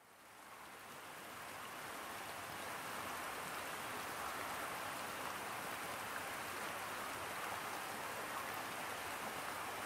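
Flowing river water: a steady rushing hiss that fades in over the first few seconds and then holds even.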